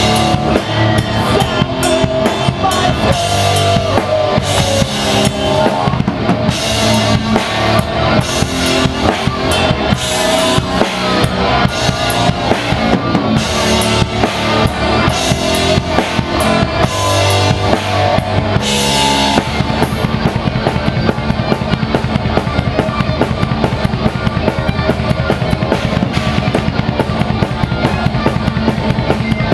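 A live metal band plays, with the drum kit loudest: kick, snare and repeated cymbal crashes over distorted guitars. About 19 seconds in, the drumming switches to a fast, even pattern with fewer crashes.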